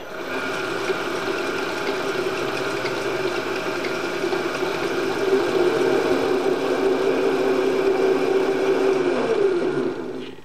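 Milling machine spindle running steadily while it drives a tap held in a drill chuck down into a hole, cutting a thread in the steel part. Near the end the motor is switched off and winds down with falling pitch.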